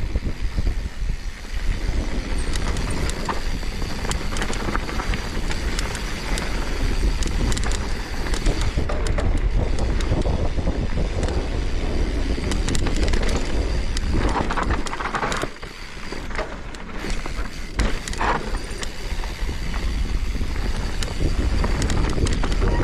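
A mountain bike riding on a dirt trail: steady tyre and trail noise with frequent clattering over bumps, and wind rumbling on the microphone. It eases off briefly about two-thirds of the way through.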